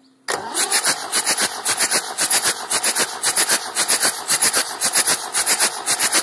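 Massey Ferguson 590's Perkins 4.248 four-cylinder diesel being cranked over on its starter for a compression test, without firing. The cranking is loud and rhythmic, pulsing several times a second, and starts about a third of a second in.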